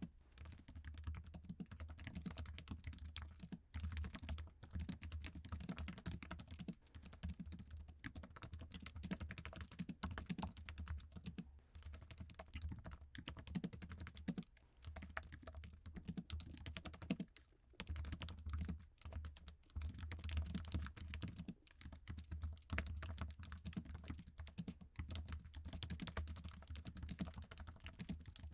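Continuous typing on an Apple iMac's standard keyboard: a rapid, dense run of soft key clicks that pauses briefly every few seconds.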